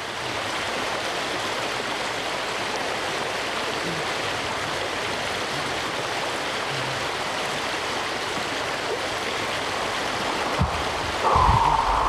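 Small rocky stream running steadily, its water rushing over stones and ice. Near the end, a man breathes out hard and loud while sitting in the icy water, pacing his breathing through the cold plunge.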